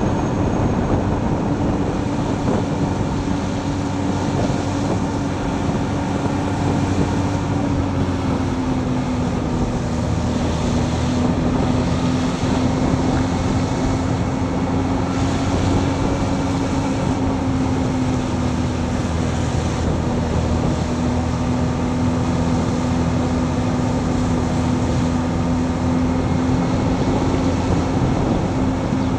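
Motorcycle riding along a wet road: a steady engine drone under wind and road noise, the engine's pitch dipping slightly about eight seconds in and then holding.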